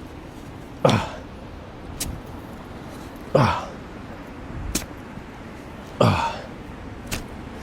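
Someone digging a hole in beach sand: three rough, heavy bursts about two and a half seconds apart, with a few light clicks between.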